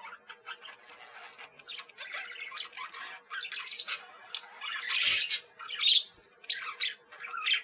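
Budgerigars (budgies) chirping and chattering in a continuous stream of short, overlapping high calls, with louder squawks about five and six seconds in.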